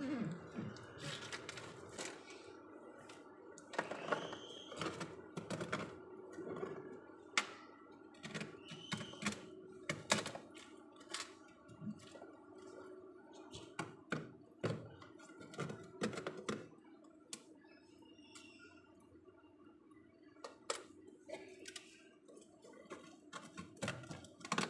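Ice and frost cracking and clicking as it is broken and pried off a freezer's ribbed plate by hand: a run of sharp cracks and knocks, thinning out over the last several seconds, over a steady hum.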